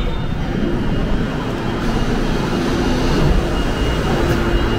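Seoul Line 8 subway train standing at the platform, a steady loud mechanical hum and rush from its running equipment, as the doors stand open for boarding.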